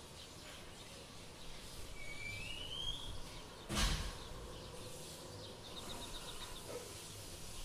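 A kitten scrambling into a pet bed, with a single soft thump about four seconds in as it lands. A thin, high, rising chirp comes about a second before the thump.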